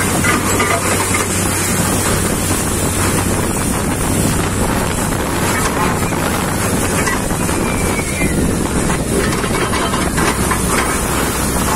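Truck-mounted borewell drilling rig running steadily as water gushes and splashes up out of the borehole around the drill pipe, a steady hissing rush over a low engine hum. The well is yielding strong water at about 360 feet.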